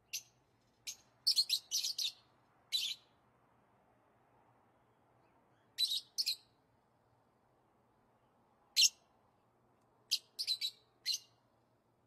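Lovebird giving short, sharp, high-pitched chirps, some alone and some in quick runs of three or four, with pauses of a few seconds between.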